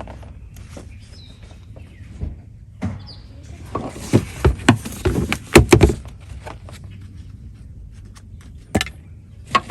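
A run of clicks and knocks from tools and parts being handled, thickest in a loud clatter with a rustle in the middle. Birds chirp faintly a couple of times.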